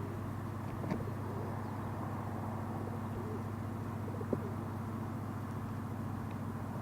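Steady low engine hum, with two faint clicks, about a second in and about four seconds in.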